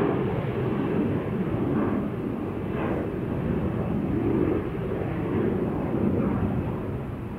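Distant jet engine noise from a Boeing 737-700's CFM56 engines on the runway: a steady low rumble with a rushing hiss, easing slightly near the end.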